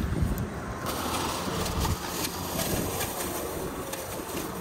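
Mowrator S1 battery-electric remote-controlled lawn mower running as it drives off through long grass: a steady noisy hiss over an uneven low rumble, brightening about a second in.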